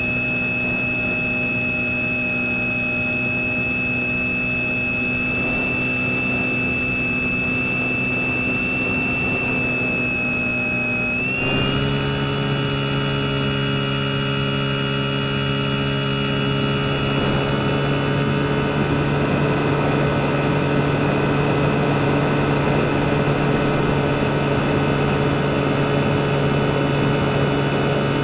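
Motor and propeller of a Skywalker FPV model plane, heard through its onboard camera: a steady, high-pitched whine. About eleven seconds in, the pitch jumps up as the throttle is raised, and the sound then grows a little louder.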